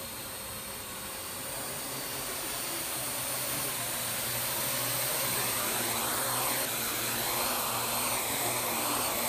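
Parrot AR.Drone quadcopter's four rotors whirring in flight. The sound gets louder over the first few seconds as the drone comes in close, then wavers up and down in pitch as it moves low over the ground.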